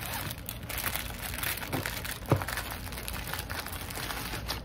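Plastic packaging crinkling and rustling as a diamond painting kit's bags and rolled canvas are pushed back into its cardboard box, with one sharp knock a little over two seconds in.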